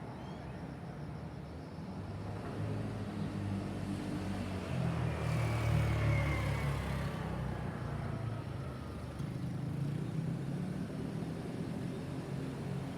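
City street traffic rumble, with a vehicle passing that grows louder to about six seconds in and then fades away.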